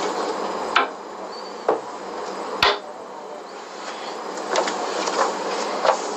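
A few sharp knocks and clicks over a steady hiss: three spaced out in the first three seconds, the loudest about two and a half seconds in, then a small cluster near the end.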